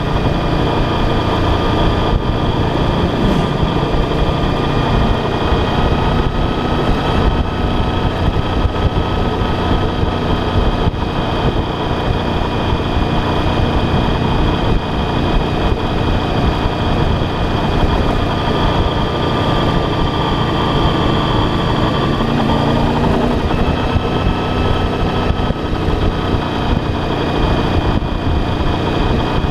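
Motorcycle engine running under way with heavy wind rumble on the bike-mounted microphone. The engine note shifts briefly about three seconds in and again around two-thirds of the way through.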